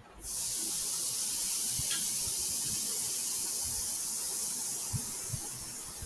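A steady, high-pitched hiss that starts abruptly and cuts off after about six seconds, with a few faint low knocks under it.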